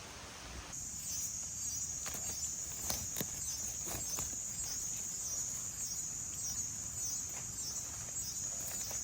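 Insects buzzing in a steady high-pitched chorus that starts about a second in, with a few faint clicks underneath.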